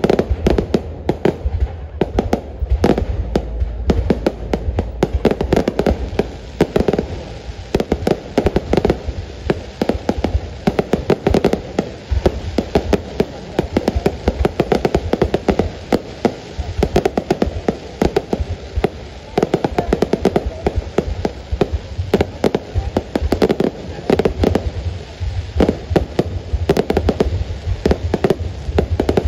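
Aerial fireworks display: shells bursting overhead in a dense, unbroken barrage of bangs and crackles.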